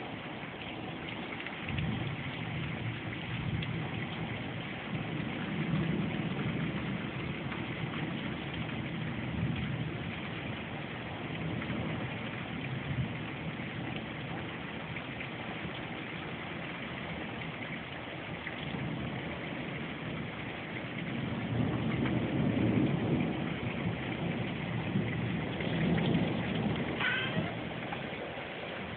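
Steady rain during a thunderstorm, with low rolling thunder that swells and fades twice, once early on and once more strongly in the second half.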